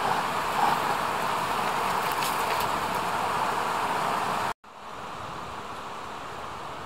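Steady outdoor background hiss with no distinct events. About four and a half seconds in it cuts out abruptly and resumes as a quieter steady hiss.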